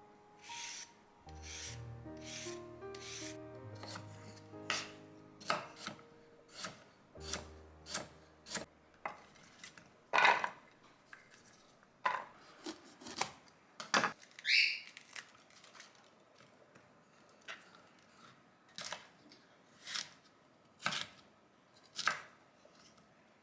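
Kitchen knife chopping on a cutting board: a run of sharp, irregular strokes, some louder than others, with short pauses between them. Faint background music plays under the first few seconds.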